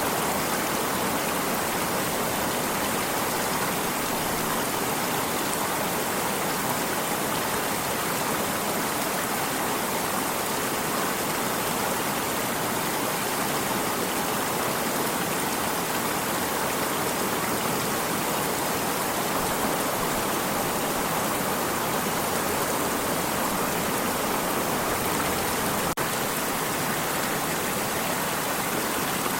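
Water stream flowing steadily, an even, unbroken rushing sound.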